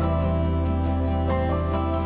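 Background music: a soft, slow instrumental with plucked guitar-like notes over a steady low drone.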